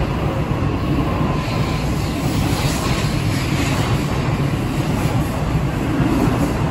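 N700 series 5000-number Shinkansen train departing and gathering speed close by: a steady rumble of wheels on rail with a rush of air along the passing cars.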